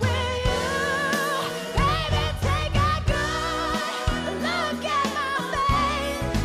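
A woman singing a soul ballad with a live band, drawing out wordless held notes with heavy vibrato over bass, drums and keyboards.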